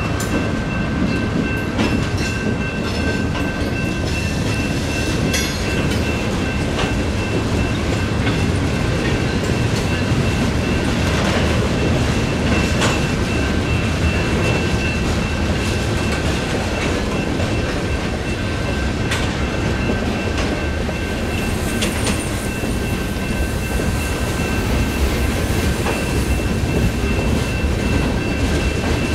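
Union Pacific freight train rolling through a grade crossing: cars rumbling with the clack of wheels over rail joints, under two steady high ringing tones from the crossing's electronic bells.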